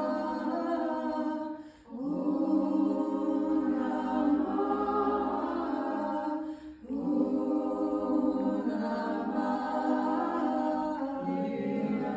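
A woman singing long, held improvised vocal tones, chant-like, in a reverberant room. She breaks for breath about two seconds and seven seconds in, and the pitch steps down near the end.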